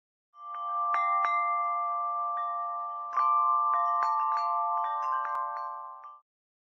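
Chimes ringing: many struck metal tones that overlap and ring on, with a fresh cluster of strikes a little past halfway that makes it louder. It fades in just after the start and cuts off abruptly near the end.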